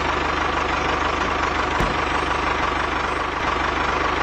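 A small tractor engine idling steadily, with an even low pulsing.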